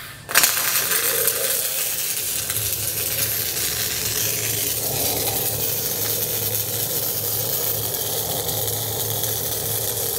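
MIG welding arc running a core wire at full output: it strikes abruptly just after the start and then runs as a steady crackling hiss.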